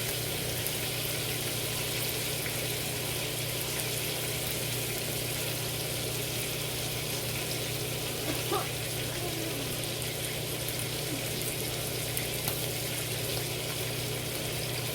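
Marinated milkfish (bangus) frying in a pan of oil, with a steady, even sizzle. A constant low hum runs underneath.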